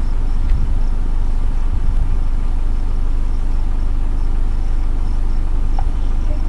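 Car engine idling, a steady low rumble, with faint high chirps repeating in the background.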